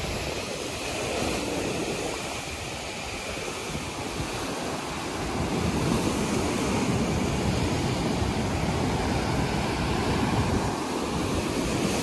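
Rough sea surf breaking and washing over rocks and against a seawall, a steady rush of water that grows louder about halfway through, with wind buffeting the microphone.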